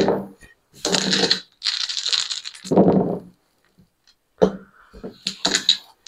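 Casino chips clattering and dice and a wooden dice stick knocking and sliding over the felt of a craps table, in several separate bursts with short clicks near the end.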